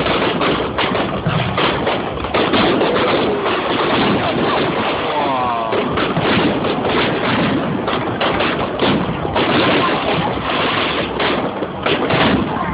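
Fireworks going off in rapid, irregular bangs and crackles, with voices in the crowd of spectators underneath.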